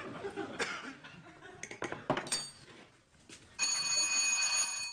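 A few light clinks of kitchen utensils against dishes, then about three and a half seconds in an electric doorbell rings steadily and loudly for over a second.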